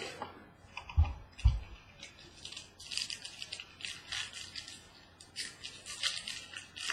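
Two soft thumps, then the crinkling and crackling of a trading-card pack's wrapper being torn open and handled, with cards shuffled.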